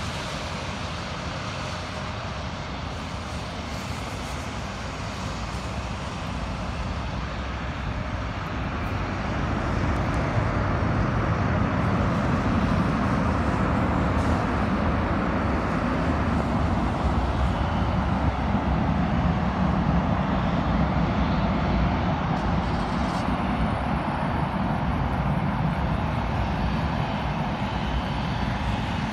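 Jet airliner noise heard at a distance, swelling about a third of the way in, holding, then easing off near the end, over a steady low rumble.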